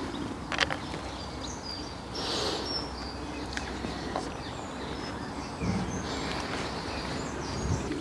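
Outdoor background noise with a steady low rumble and faint bird chirps. A couple of light clicks come near the start as the metal beam hanger and its screws are handled.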